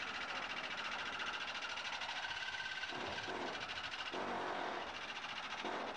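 A saw blade cutting through a car's steel door pillar: a steady, fast rasping of metal, with a few short lower noises about three and four seconds in.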